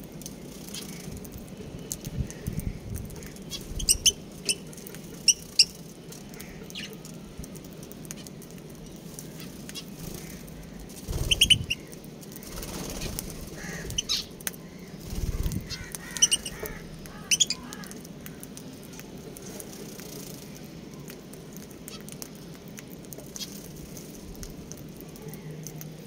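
A mixed aviary flock of budgerigars and lovebirds giving short, high, sharp chirps in scattered clusters. There are quiet gaps between the clusters and a couple of low thumps.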